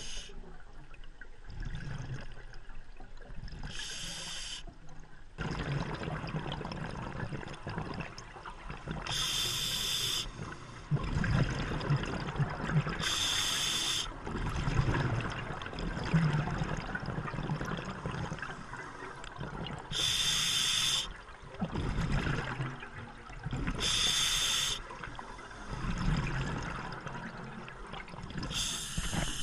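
Scuba diver breathing through a regulator underwater: a short hiss on each inhale, every few seconds, followed by the rushing, bubbling noise of the exhale.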